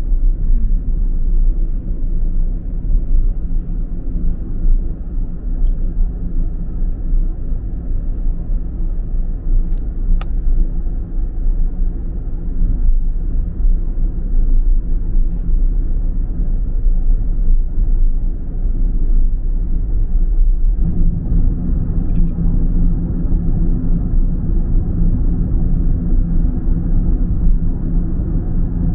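A car driving along a road: a steady low rumble of engine and tyre noise, which gets louder about two-thirds of the way through.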